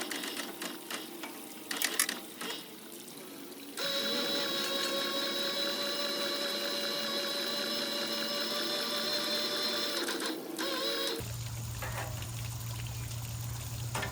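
Electric hose reel motor winding in pressure-washer hose: a steady whine starts about four seconds in and stops abruptly a few seconds from the end, after some light clicks and rattles. A low steady hum follows.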